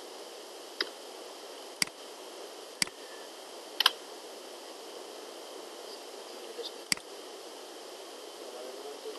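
Computer mouse clicking: several sharp single clicks about a second apart, a quick double click near four seconds and another click near seven seconds, over a steady microphone hiss.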